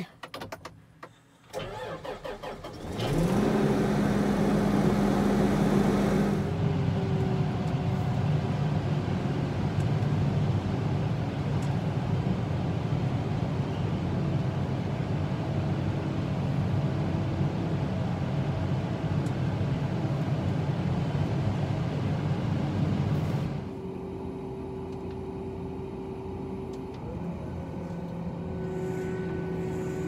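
A few clicks, then a large farm tractor's diesel engine starting about three seconds in: it catches with a rising pitch, runs fast for a few seconds, then settles into a steady run heard from inside the cab. Near the end the sound drops to a quieter, different steady engine hum.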